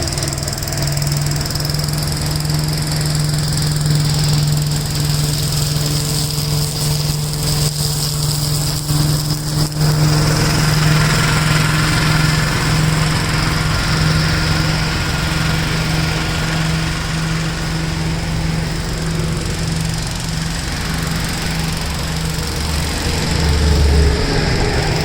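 1969 Gravely L walk-behind tractor's single-cylinder engine running steadily, driving its rotary mower attachment as it mulches leaves. A rushing noise grows stronger about ten seconds in.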